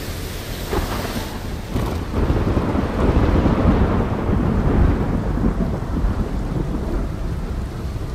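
Thunderstorm: a deep rumble of thunder swells about two seconds in and keeps rolling, over a hiss of rain.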